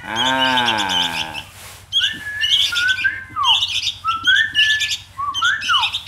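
Several caged sooty-headed bulbuls (kutilang) chirping busily, with short whistled notes that slide upward and two quick downward swoops. A man's long drawn-out vocal sound comes first, for about a second and a half.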